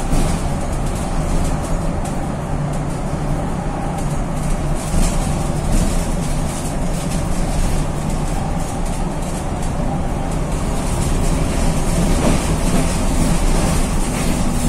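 Engine of a VW 26.330 OTA city bus (Mascarello Granmetro body) running as the bus drives, heard from the rear of the passenger cabin as a steady low drone.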